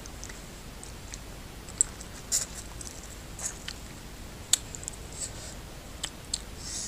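Bare fingers mixing oily curry into rice on a metal plate, making scattered wet clicks and squelchy crackles. The sharpest come about two and four and a half seconds in.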